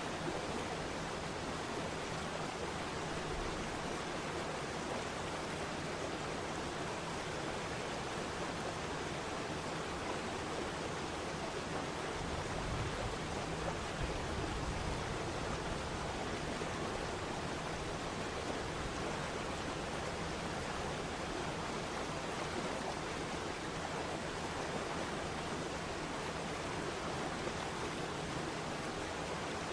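Waterfall: a steady rush of falling water, with the low rumble swelling a little around the middle.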